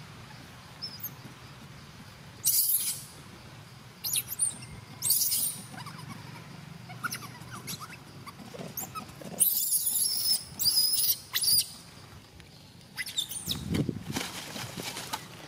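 Baby monkey giving short high-pitched squeaks in several bursts, the longest near the middle, mixed with rustling of leaves and ground litter as it moves.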